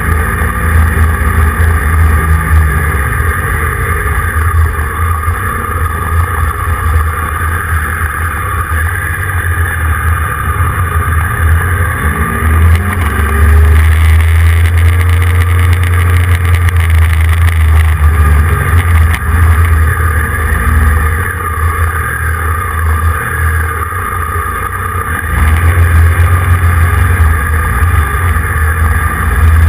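Motorcycle engine running on the move, with heavy wind rumble on the microphone. The engine note rises and falls as it speeds up and slows, growing louder about halfway through and again near the end.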